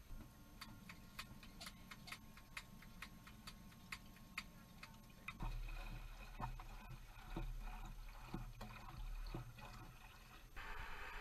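Faint, even ticking, about three or four clicks a second. After a cut it gives way to irregular light knocks and clinks of metal being handled at a stainless galley sink over a low rumble, and a steady hiss starts near the end.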